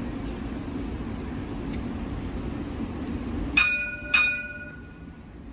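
Stationary Alstom Citadis X05 light-rail tram humming steadily, then its bell rings twice, two clear dings about half a second apart near the end. The hum drops away after the dings.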